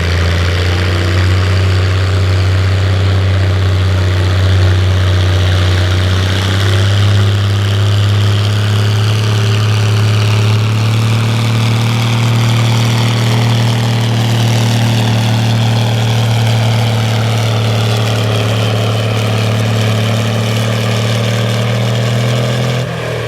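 Minneapolis-Moline farm tractor engine running hard under load while pulling the weight-transfer sled, a steady drone whose pitch climbs slightly a few seconds in and then holds. Near the end the engine drops off sharply as the throttle is pulled back at the end of the pull.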